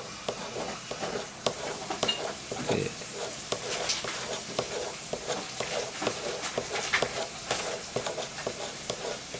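Ceramic knife blade scraping and deburring cured metal-filled adhesive flush around the pin hole of a knife handle: a continuous run of small, irregular scratching strokes.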